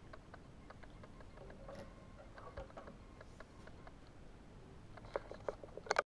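Small Victorinox pocketknife with stainless steel scales being handled over a wooden table: faint scattered clicks and taps, then a cluster of louder clicks and knocks near the end as the knife is laid down.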